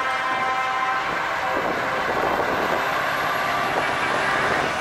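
Scania T-series truck diesel engines running steadily as the trucks drive slowly past. A faint steady whine drops out about a second and a half in.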